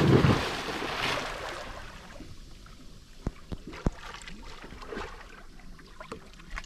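A person jumping feet-first off a small boat into the sea: a big splash right at the start, then water churning and settling over the next second or so, with a few sharp knocks later.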